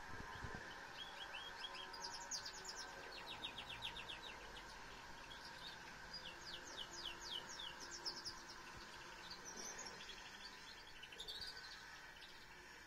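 Female domestic canary singing in phrases of fast, evenly repeated high notes, trill after trill with short pauses between. The owner calls her ready for breeding and says she sings as if she were a male.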